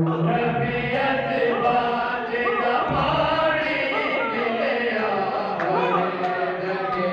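Many men's voices chanting zikr together, a dense, overlapping devotional chant with voices wavering in pitch.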